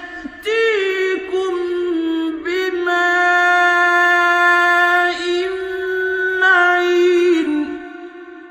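A man's voice chanting Quran recitation in long, melodic held notes, one high pitched line with a wavering start. The last note ends about 7.5 s in and dies away in echo.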